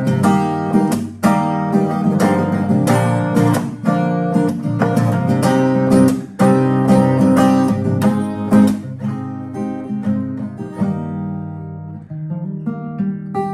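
Acoustic guitar with a capo strummed in a rhythmic chord pattern. The strokes thin out over the last few seconds, leaving the chords to ring more softly.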